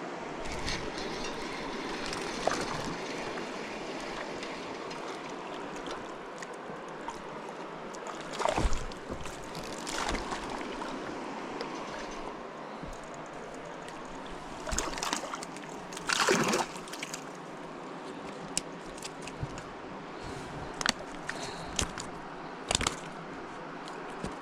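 River water running steadily, with several short louder splashes in the water, the loudest about eight and sixteen seconds in.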